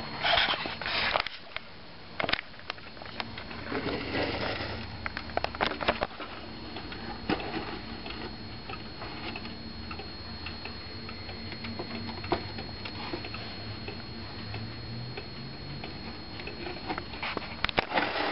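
Weight-driven Dutch wall clock ticking, its escapement giving sharp clicks, with rustling from a handheld camera near the start, about four seconds in and near the end.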